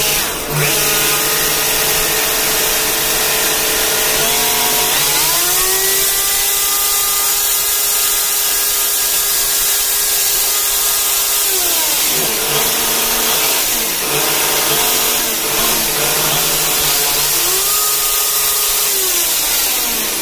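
The electric motor of an 11 kg GSH 11E-type demolition breaker running on a bench test after a new armature and carbon brushes, with a steady whine. The motor speeds up a few seconds in, drops back around the middle, then speeds up and drops again near the end. It is running properly.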